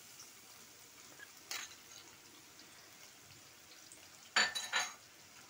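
Chopped onions frying in oil in an aluminium pan, a steady sizzle. There is one short knock about a second and a half in, and two loud metallic clinks near the end.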